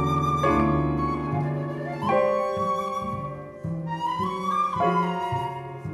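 Solo grand piano playing slow, ringing chords, with a new chord struck every second or two and each left to die away.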